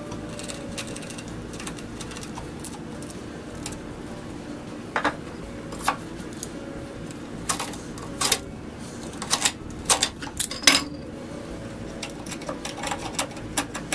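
A chisel and a steel square clicking and tapping against a wooden block: a scatter of sharp clicks starting about five seconds in, the loudest around ten seconds in, over a faint steady hum.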